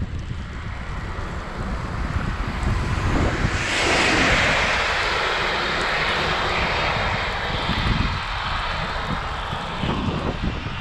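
Wind buffeting the microphone on a moving bicycle, with a rushing hiss of tyres on the wet road that comes in suddenly about three and a half seconds in and slowly fades.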